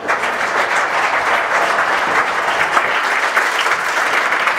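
Audience applauding, dense and steady clapping that starts abruptly.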